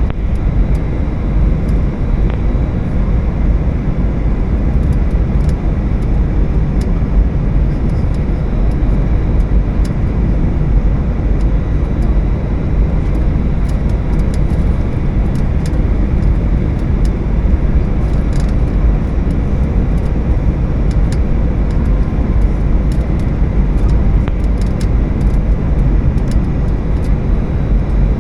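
Steady cabin noise of an Airbus A320, the even rush of its engines and airflow heard from inside, with faint scattered ticks and rattles.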